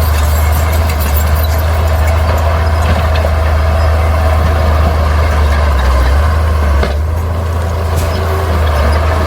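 Bulldozer's diesel engine running steadily at working revs, with a couple of sharp metallic clanks near the end.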